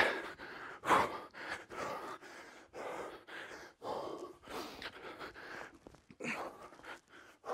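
A man breathing hard from exertion: repeated gasps and forceful exhales, one or two a second, with a sharper, louder one about a second in.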